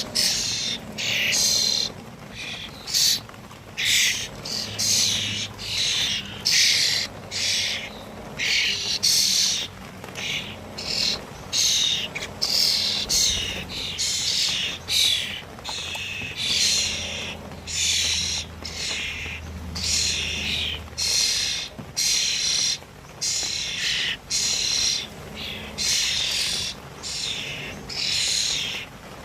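Birds calling, short chirps repeated about once or twice a second.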